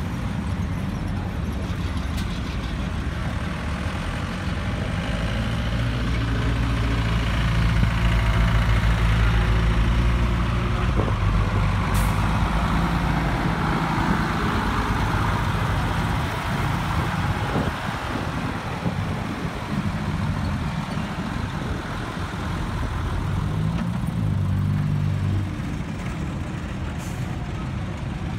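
Vintage vehicle engines running as the vehicles drive slowly past one after another: a wartime jeep and a heavy AEC diesel lorry passing close, with Land Rover engines following. The deep engine note is strongest in the first half, and an engine briefly revs up and down near the end.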